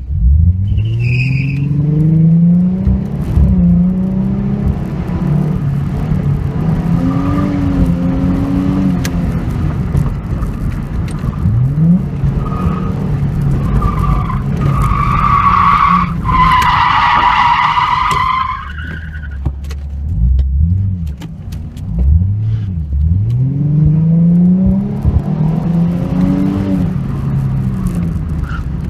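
Fifth-generation Ford Mustang driven hard round an autocross course. The engine revs up from the launch and rises and falls through the turns. Loud tire squeal comes about halfway through as the tires slide, then the revs drop and climb again.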